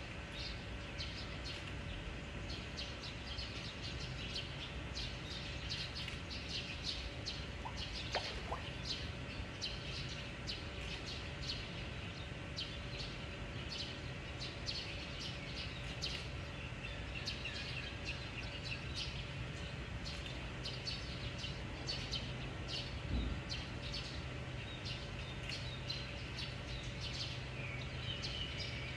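Many small birds chirping in quick, overlapping calls, over a steady low hum.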